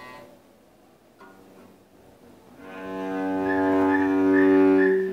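Cello note bowed and held for about two seconds, swelling and then stopping near the end, after a fainter held tone. It is played on the third string instead of the intended second string.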